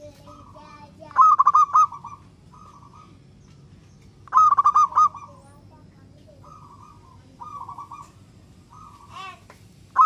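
Zebra dove (perkutut) cooing: two loud song phrases, about a second in and past four seconds, each a quick run of a few staccato notes, with softer partial phrases after them and a new phrase starting at the very end.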